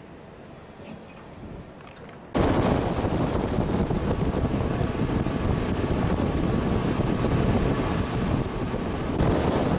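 Wind buffeting the microphone aboard a moving boat, a loud steady rushing noise that cuts in abruptly about two and a half seconds in after a quieter opening.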